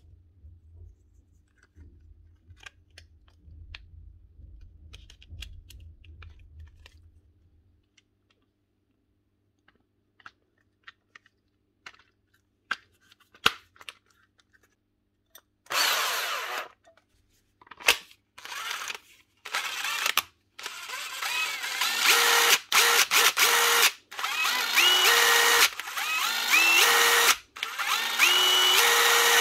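DeWalt 18V XR brushless impact driver test-run after its trigger switch was cleaned out: the motor runs in repeated short trigger bursts, its whine rising in steps as it spins up on each pull. Quieter clicks and handling of the tool come before the runs.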